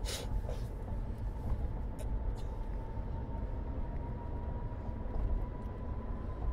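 Steady low rumble of background noise with a faint steady hum, and a couple of brief hisses.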